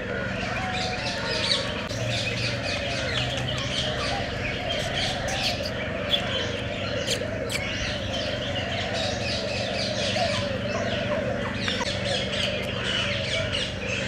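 A dense chorus of many birds chirping and tweeting without pause, over a steady low hum.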